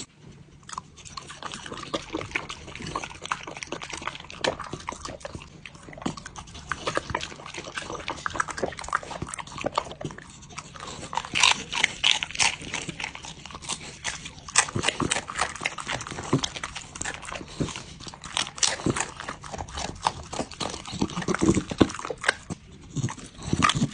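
Dog chewing raw purple cabbage leaves, a dense, irregular run of wet crunches and mouth smacks, with licking at a metal tray. The crunching is loudest about halfway through and again toward the end.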